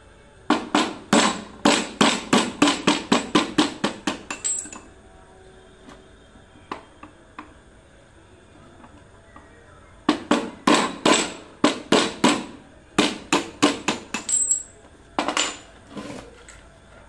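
Quick runs of blows from a plastic-headed mallet knocking permanent-magnet segments out of an e-rickshaw motor's rotor, about four or five strikes a second. A first run lasts about four seconds, and a second one starts about ten seconds in and lasts about six seconds.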